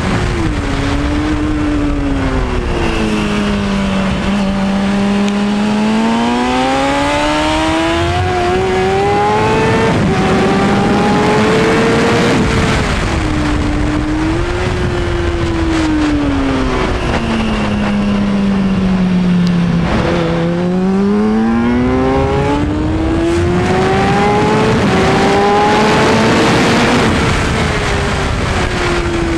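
2003 Kawasaki Ninja 636's inline-four engine heard onboard at racing speed: revs climb through the gears with short steps at each upshift, then fall away twice as it brakes and downshifts for corners, over a steady rush of wind.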